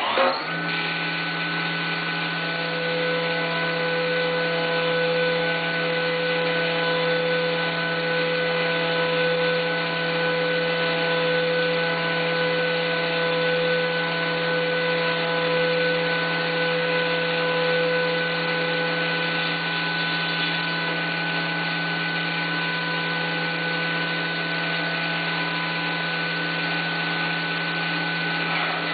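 CNC milling machine cutting aluminum under coolant: a steady spindle and cutter whine made of several held tones over a noisy hiss, with one tone fading out about two-thirds of the way through.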